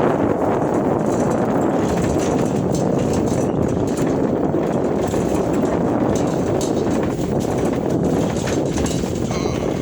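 Steady wind buffeting the microphone, a dense rumbling noise with no clear engine tone.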